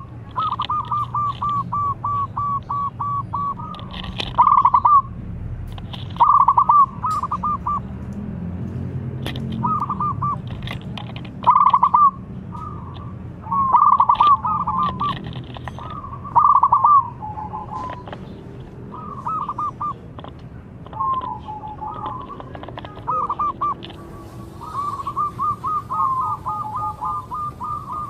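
Young zebra dove (perkutut) cooing in repeated bouts of rapid staccato notes, a dozen or so bouts, some loud and some softer, with a big voice.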